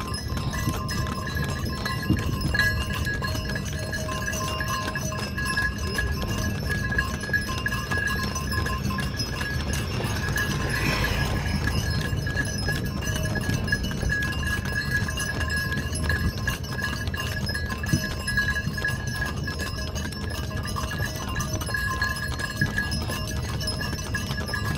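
Bullock cart drawn by two bullocks travelling along a paved road: hooves clopping and the cart rattling and rumbling as it rolls, with a steady high ringing over it.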